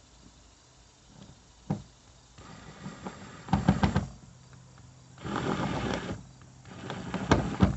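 Cordless drill driving a screw in three short bursts, after a single sharp click.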